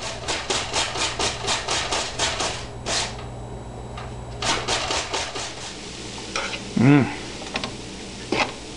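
Utensil scraping and stirring diced vegetables in a frying pan in quick strokes, about four a second, in two runs, over a low steady hum. About seven seconds in comes the loudest sound, a brief pitched vocal 'mm', followed by a few light clicks.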